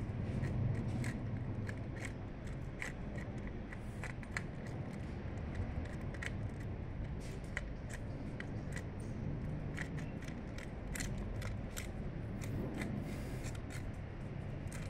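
A cat eating wet food from a plastic tray close by: quick, irregular wet clicks of chewing and licking, several a second, over a steady low background rumble.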